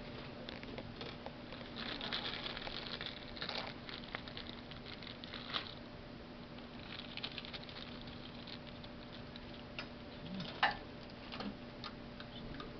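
Rustling of a small plastic zip bag and light clicks of small screws being handled, with a sharper click about ten and a half seconds in. A steady low hum runs underneath.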